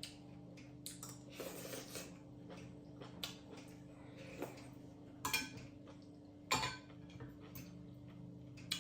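Eating utensils clicking and scraping against a bowl of noodles, with two louder clinks about five and six and a half seconds in. A steady low hum runs underneath.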